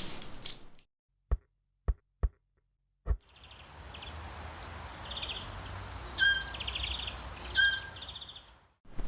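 Four short, dull low thumps in silence, then outdoor ambience with birds chirping: quick trills and two louder calls.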